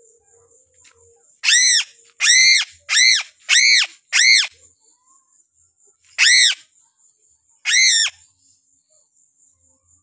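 Piping crow (Sulawesi crow) giving harsh, loud calls while held in the hand: five in quick succession, then two more spaced a couple of seconds apart. Crickets chirr steadily in the background.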